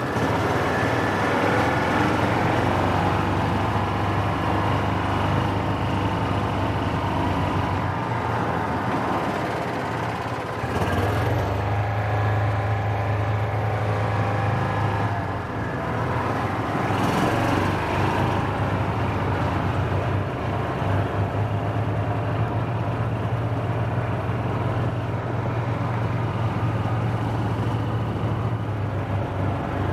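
Gator utility vehicle's engine running steadily while driving, with tyre and road noise underneath. The engine note weakens briefly about eight seconds in and picks up again just after ten seconds.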